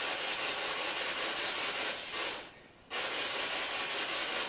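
Spirit box radio static: a steady hiss of sweeping radio noise that drops out for about half a second a little past halfway, then comes back.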